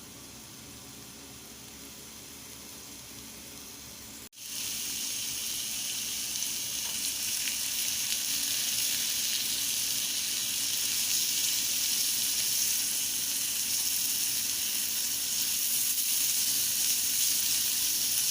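Seasoned chicken pieces frying in a pan with a steady sizzle. It is fainter for about the first four seconds, cuts out for an instant, then sizzles louder.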